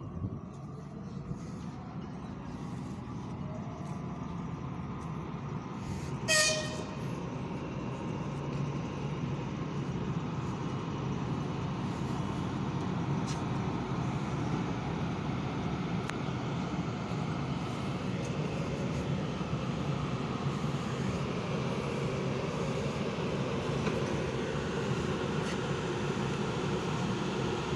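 ChS7 electric locomotive creeping up to couple onto a passenger train, its machinery running steadily and slowly growing louder as it closes in. It gives one short horn toot about six seconds in.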